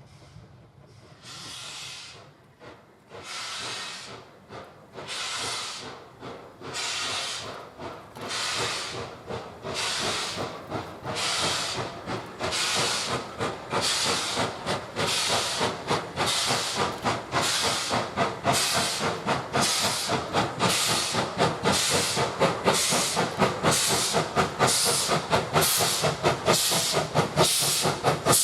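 Ivatt 2MT 2-6-2T steam tank locomotive working hard up a steep gradient, its exhaust beats coming as regular chuffs. The beats start faint and widely spaced, then grow steadily louder and quicken to about two a second as it draws near.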